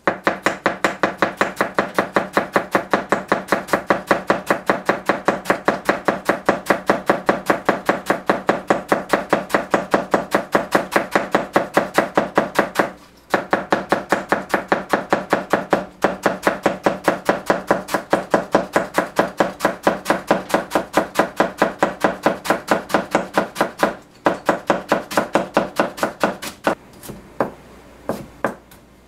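Rectangular cleaver finely shredding cabbage on a white plastic cutting board: rapid, even chopping knocks, about five a second. The run breaks off briefly twice and thins to a few scattered knocks near the end.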